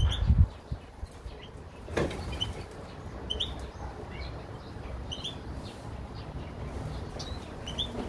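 Canaries and other small finches in an aviary giving short, scattered chirps and call notes. A low thump comes right at the start, and a sharp click about two seconds in.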